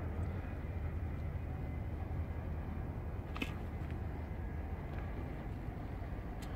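A steady low rumble with a few sharp clicks, the loudest a little past halfway.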